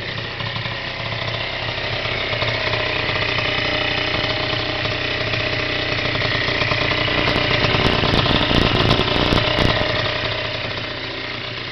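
Zipp scooter engine running through a Tecnigas aftermarket exhaust, steady at first, getting a little louder around eight to nine seconds in, then easing back near the end.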